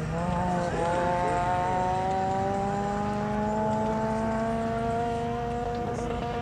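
Rally car engine running hard on a gravel stage. Its note dips briefly at a gear change just under a second in, then rises slowly and steadily as the car pulls away.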